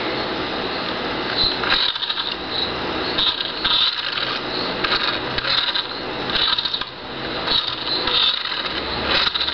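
A toy remote-control car's small electric motor and plastic gears whirring and clicking in short, irregular spurts as it is driven in stop-start bursts, over a steady hum.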